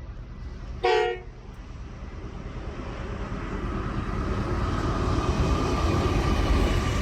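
Train approaching: a short horn toot about a second in, then the rumble of the train growing steadily louder.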